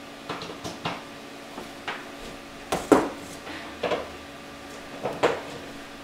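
Irregular light knocks and clatter of a power cable and power supply being picked up and handled, about eight in all, the loudest about three seconds in.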